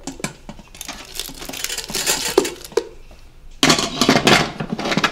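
An Instant Pot electric pressure cooker being closed: light taps and clatter as the silicone cover is pressed onto the bowl and the plastic lid is set on. About three and a half seconds in, a louder stretch of scraping and rattling follows as the lid is twisted round on the steel pot rim to lock.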